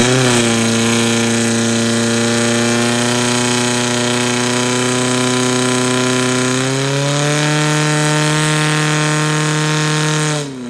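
Portable fire pump's engine running at high revs while pumping water out through the attack hoses. Its pitch steps up slightly about two-thirds through, then falls sharply as it is throttled back just before the end.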